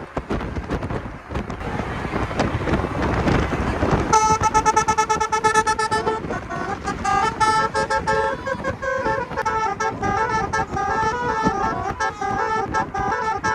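Basuri-style telolet horn, a multi-trumpet musical car horn, playing a tune. It starts about four seconds in with a held chord, then runs through quickly changing notes. Before the horn, a rushing noise builds.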